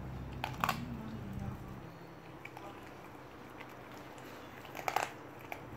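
A puppy chewing and biting into a raw pheasant, with a few sharp crunches about half a second in and again near the end. A low steady hum lies under the first second and a half.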